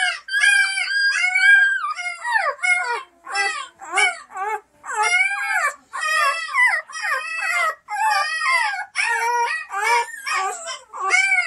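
Newborn Bernese Mountain Dog puppy crying: a string of short, high cries, about two a second, each rising and falling in pitch.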